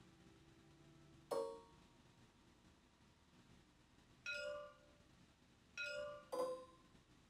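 Four short, soft electronic chimes from a digital tabletop game's interface: one about a second in, then three more from about four seconds in, the last two close together.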